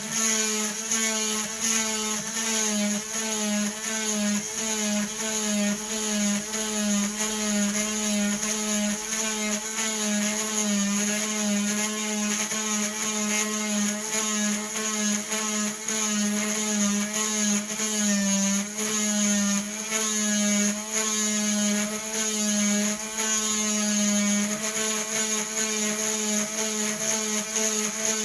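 Dremel rotary tool running at a steady whine while its diamond bit is pecked into a stone in quick repeated jabs, several a second, the pitch wavering as the bit bites. The stone is being drilled dry, without water.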